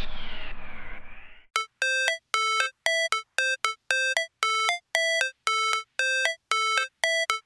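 Background music: an electronic track fading out with falling tones, then, about a second and a half in, a sparse bell-like synth melody of short repeated notes that opens the next song.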